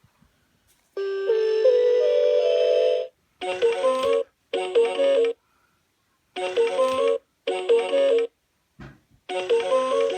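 Electronic toy playing a simple beeping melody in short snatches, each cut off abruptly, about five times over.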